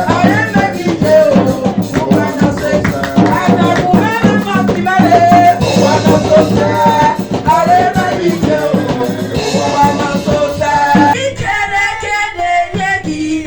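Music with singing over a fast, steady percussion beat.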